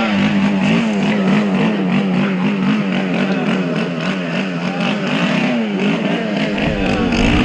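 An engine running steadily, its pitch wavering slightly up and down.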